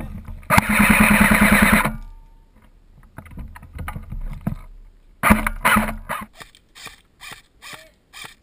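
Airsoft M4 CQB rifle firing a burst of rapid shots lasting about a second and a half, then a second, shorter burst about five seconds in, followed by a string of separate sharp clicks about three a second.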